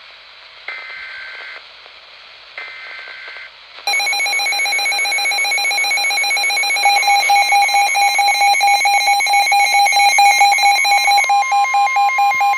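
Emergency Alert System tornado warning: a hiss broken by two short screeching data bursts, then a loud, harsh, rapidly pulsing alarm tone from about four seconds in. A second steady tone joins it about seven seconds in.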